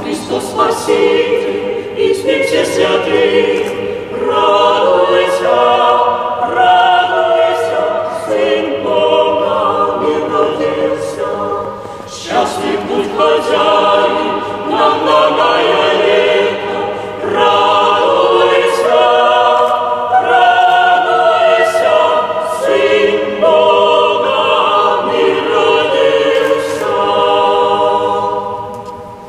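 Small mixed choir of women's and men's voices singing a cappella in a church, in sustained chords with brief breaks about four and twelve seconds in; the final chord ends just before the close.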